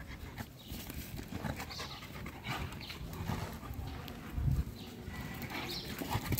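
Two dogs play-wrestling: panting and scuffling on paving stones, with a soft thump about four and a half seconds in.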